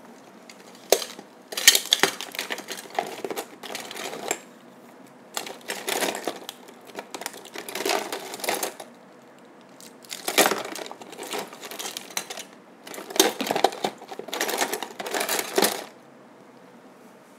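Small metal tools scraping and clicking against a Nintendo 3DS circuit board while the old charging port is desoldered and worked loose, in four bursts of a few seconds each with short pauses between.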